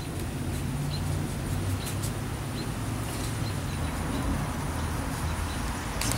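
Outdoor background: a steady low rumble with faint short high chirps repeating about twice a second.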